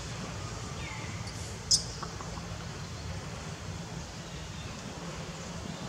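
Steady low rumble of outdoor background noise, with a faint falling call about a second in and a single sharp, high chirp a little under two seconds in.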